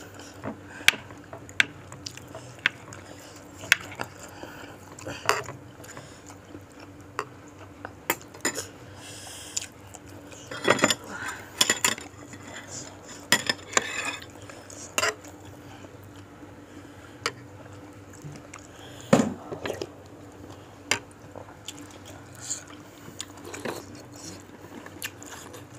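Spoon and fork clinking and scraping against a bowl at irregular intervals while cutting into a very large meatball in soup, with a cluster of louder knocks around the middle.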